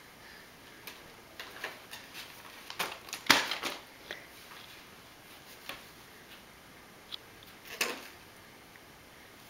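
A toddler's hands knocking and rummaging in an open dresser drawer: scattered taps, knocks and rustles of the drawer and the clothes in it, the loudest knock about three seconds in and another near the end.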